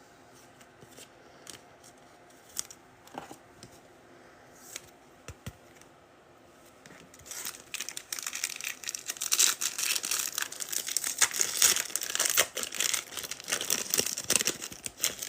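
A foil trading-card pack wrapper being torn open and crinkled, starting about halfway through, after several seconds of near quiet with a few faint clicks.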